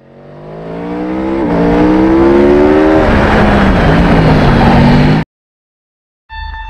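Aprilia Tuono V4's V4 engine at full throttle. It fades in and its pitch climbs through the gears, with upshifts about one and a half and three seconds in. It cuts off abruptly about five seconds in.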